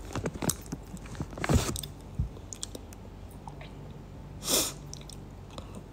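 A person chewing and biting food close to the microphone, with sharp crunchy clicks in the first two seconds. A short hiss-like noise comes about four and a half seconds in.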